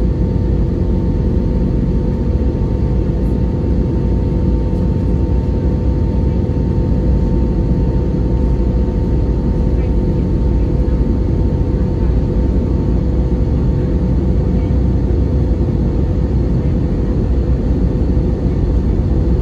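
Steady cabin roar of an Airbus A320neo in flight: its Pratt & Whitney PW1100G geared turbofan engines and the rush of air over the fuselage, heard from inside near the wing. A steady tone runs through the roar and fades somewhat in the later part.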